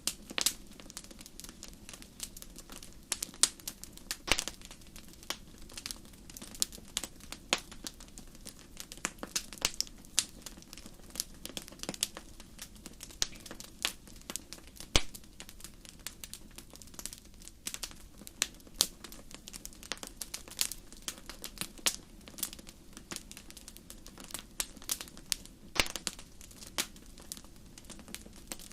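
Wood fire burning in a fireplace, crackling: irregular sharp pops and snaps, several a second, over a steady low rumble.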